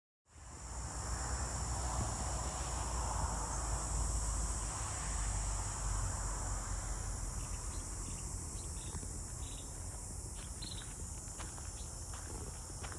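Steady high-pitched chorus of insects, over a low rumble. From about halfway, light crackling steps through brush come in as scattered clicks.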